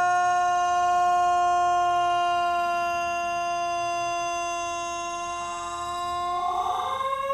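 Federal Signal Thunderbolt tornado siren sounding a steady low tone that slowly fades, then climbs to a higher pitch and grows louder near the end. It struggles to hold its speed, which the uploader puts down to bad bearings.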